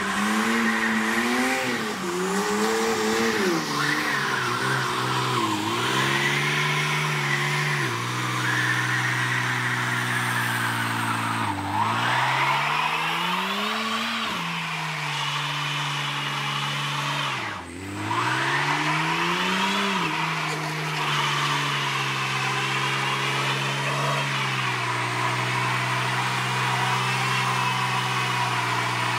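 BMW E36 drift car held at high revs with its tyres spinning and squealing. The revs drop and climb again several times.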